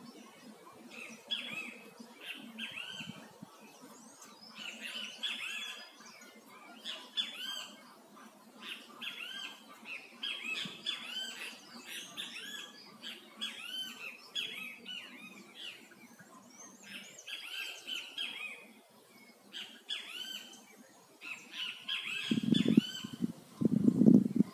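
Birds calling and chattering, many short arched notes repeated over and over. A louder low rumble comes in near the end.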